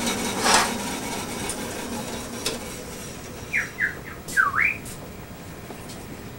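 A few short, high squeaky chirps in quick succession, the last one dipping and rising in pitch, over a steady low background noise. A brief rush of noise comes just after the start and a single click near the middle.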